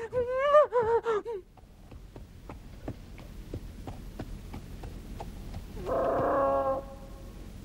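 Donkey's hooves clip-clopping at a steady walk, about three hoofbeats a second, as a cartoon sound effect. It opens with a squeaky, warbling cartoon animal call lasting over a second, and a shorter animal call sounds near the end.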